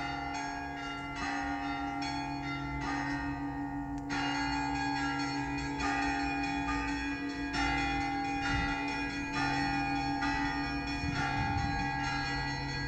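Russian Orthodox cathedral bells ringing. A deep bell's hum holds steady under strikes of smaller, higher-pitched bells, about two a second.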